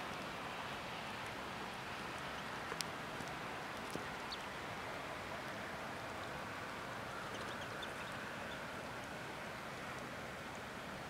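Steady outdoor background hiss, with two sharp clicks about three and four seconds in and a few faint, short, high-pitched notes.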